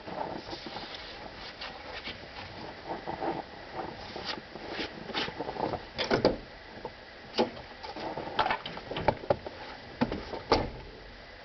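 Irregular knocks and clicks of handling, unevenly spaced, with the loudest about six seconds in and a cluster of sharp ones in the second half; no engine is running or cranking.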